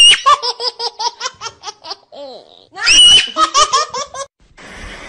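A person's high-pitched laughter in two bouts. Each opens with a squeal and breaks into a quick run of short ha-ha-ha pulses. Near the end it gives way to a faint steady hiss.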